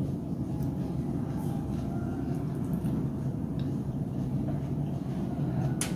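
A steady low rumbling hum, with a few light clicks, the sharpest near the end, from a fork on the salad plate.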